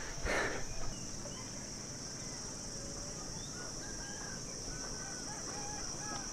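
Steady, high-pitched drone of insects, with faint short bird chirps from about three seconds in.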